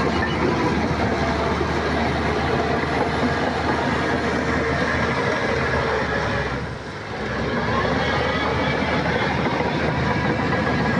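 Shantui bulldozer's diesel engine running steadily while working, easing off briefly about seven seconds in.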